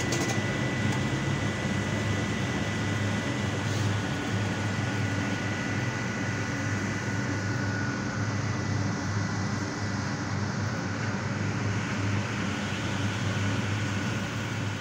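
Sewer tanker truck's engine and vacuum pump running steadily: a low drone with a thin high whine held over it.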